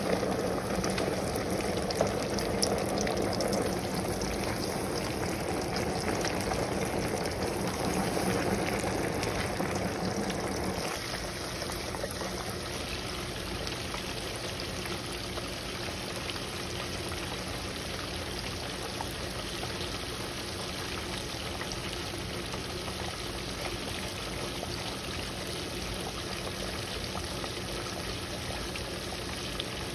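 Cornmeal-dredged pompano fillets deep-frying in a pot of hot oil: a steady bubbling sizzle, fuller for the first ten seconds or so, then easing slightly to an even crackling hiss.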